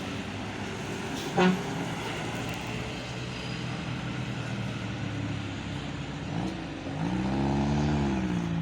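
Roadside traffic, with a large road vehicle's engine running steadily. There is a short loud knock about a second and a half in. Near the end a low engine tone rises and falls over about a second and a half.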